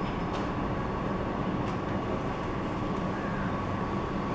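Steady low background hum and rumble with a constant faint whine, unchanging throughout: room tone of the shop.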